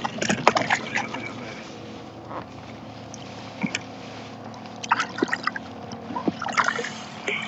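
Water slapping and splashing around a small inflatable boat, over a steady low hum, with a few short splashes and knocks.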